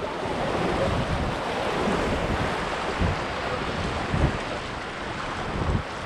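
Rushing white water of a river rapid around an inflatable raft, with wind buffeting the microphone in low thumps.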